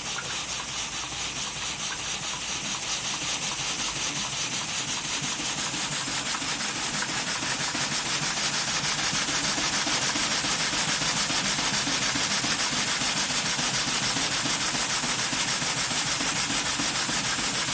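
Model double-acting horizontal steam engine running on compressed air with an even, rapid exhaust beat and hiss. It gets louder and brighter over the first several seconds as the air pressure is raised, then runs steadily.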